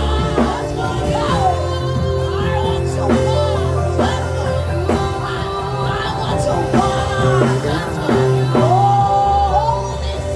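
Live worship music: sustained bass and keyboard chords with voices singing freely over them, no clear words.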